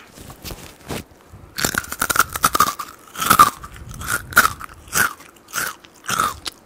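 Close-miked chewing of crispy deep-fried chicken batter crust: a run of loud, sharp crunches, about two a second.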